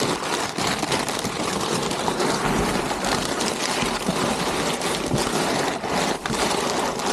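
Crumpled brown kraft packing paper crinkling and rustling continuously as it is pressed by hand into the bottom of a cardboard box as cushioning.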